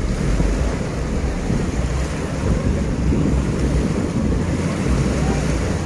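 Small surf breaking on a sandy beach, with wind buffeting the microphone as a steady low rumble.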